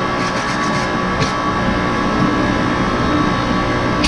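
Workshop machinery running with a loud, steady drone and hum, with a faint click or two.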